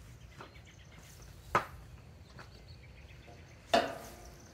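Two sharp knocks about two seconds apart as a step ladder is set in place and the metal curtain rod hardware is handled; the second knock is louder, with a brief metallic ring. Insects chirp faintly throughout.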